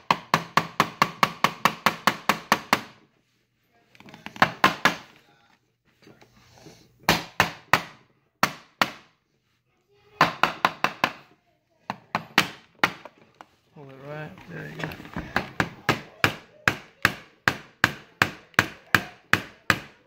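Hammer tapping on a tool set against a glued rivet in a plastic armor belt, to break the rivet and old glue loose. The blows come in quick runs of about five a second, with short pauses between runs.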